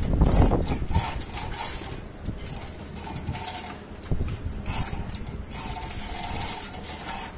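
Suspended work platform's electric wire-rope hoist running in three or four short bursts, a steady mechanical whine. Wind buffets the microphone in the first second.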